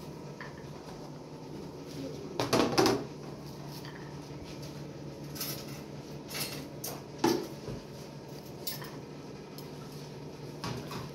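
Kitchenware clattering as plastic basins and a metal tray are set down and knocked together on the floor: a loud clatter about two and a half seconds in, a sharp knock about seven seconds in, and lighter clinks between, over a steady low hum.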